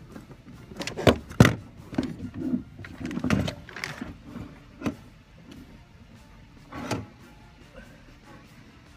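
Car seat cushion being pulled up and out of its mounting: a run of knocks and clunks from the seat frame and its catches. The loudest knocks come about a second in, and one more comes about seven seconds in.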